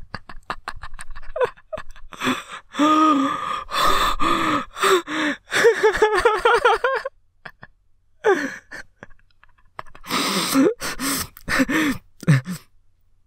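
A person's voice making wordless sounds: a run of breathy vocal bursts, some with a wavering pitch, broken by short pauses past the middle and just before the end.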